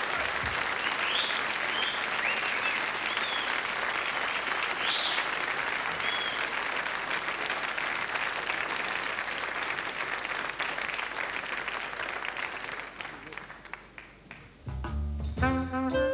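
Studio audience applauding, the clapping fading away after about thirteen seconds. Near the end a jazz band starts a swing number, with saxophone and brass.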